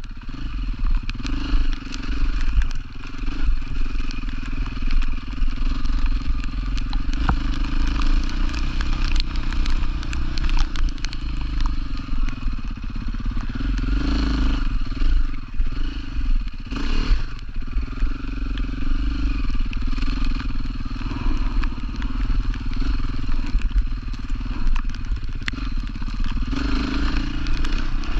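An off-road rally motorcycle's engine runs continuously, its revs rising and falling, over a heavy low rumble. Many small clicks and knocks run through it.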